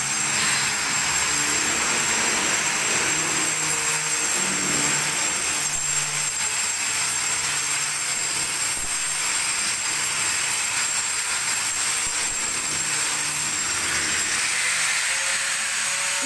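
A compressed-air spray gun hissing steadily, fed by a small portable air compressor, with a thin high whine that stops near the end.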